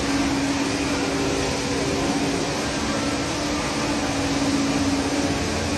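Steady rushing noise of a large indoor waterfall, the Rain Vortex, pouring down into its pool, with a steady low hum beneath it.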